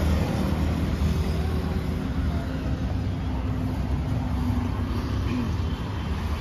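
Steady low rumble of road traffic going past, motorcycles and other vehicles.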